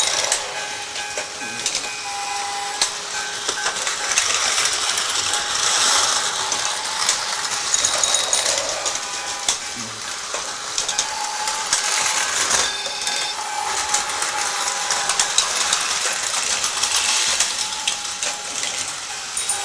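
Battery-powered Tomy toy trains running on plastic track: a dense, continuous whirring and clicking of small motors and gears with rattling of the plastic cars.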